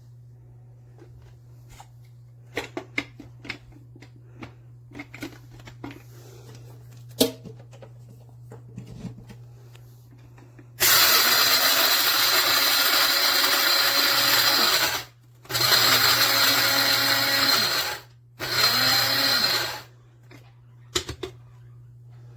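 Cuisinart one-touch blade coffee grinder whirring in three pulses, about four, two and a half and one second long, grinding coffee beans, its pitch sweeping as the motor spins up and down. Before it come light clicks and knocks from handling, over a steady low hum.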